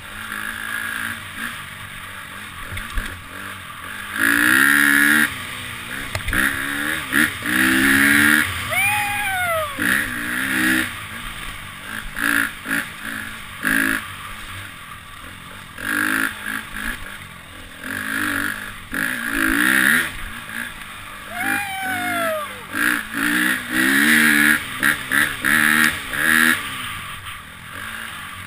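Dirt bike engine revving up and down as the throttle is opened and closed, heard from the rider's helmet camera. Twice, about nine seconds in and again near twenty-one seconds, the rider lets out a whoop that falls in pitch.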